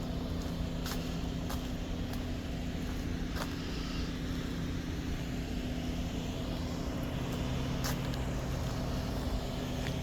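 Steady low motor hum, like a vehicle engine running, with a few faint clicks on top.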